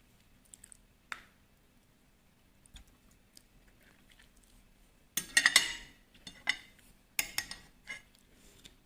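Cutlery clinking and scraping against a plate during eating: a few light clicks at first, then two short runs of clattering about five and seven seconds in.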